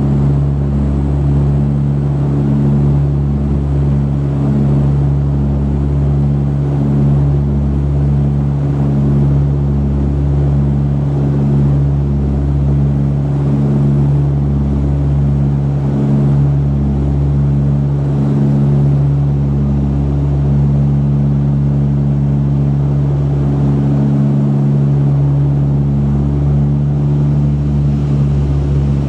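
Cabin drone of a de Havilland Canada Dash 8-100's twin Pratt & Whitney Canada PW120-series turboprops and propellers in flight. A steady low hum of several held tones over a rushing noise, with a light regular throb.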